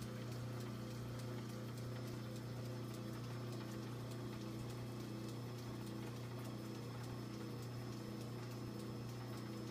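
Steady low electrical hum, with light irregular ticks throughout.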